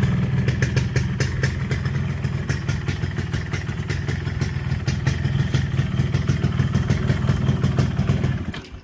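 Yamaha RX-King's single-cylinder two-stroke engine running steadily on its stock exhaust, with a crisp, raspy 'ngorok' note and a rapid metallic 'ting ting' ticking. It stops shortly before the end.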